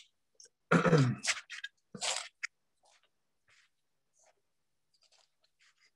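A man speaks briefly, then faint, scattered crisp crunches follow as the peeler blade of a Microplane cabbage tool cuts the leafy stalks away from a cauliflower head.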